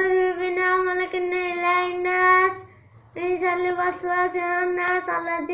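A child's voice chanting a Quran reading recitation in long, held sing-song notes. It comes in two phrases, with a short break about halfway through.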